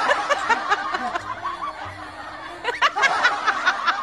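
Tabby cat chattering: quick runs of short, clipped calls, easing off about a second in and starting again near the three-second mark.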